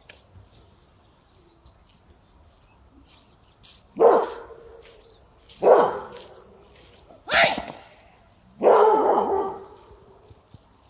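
A dog barks four times, a second and a half or so apart, the last bark drawn out longer. The dog is barking at a person advancing on it with raised, waving arms.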